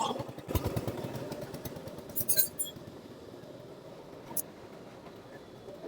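Small metal parts of a motorcycle starter clutch kit clinking and rattling as they are handled and fitted, with a quick run of clicks in the first second or so and a few separate sharp clicks after it.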